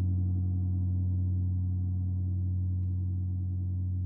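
Low gong tone ringing on after a strike and slowly fading, its overtones gently wavering.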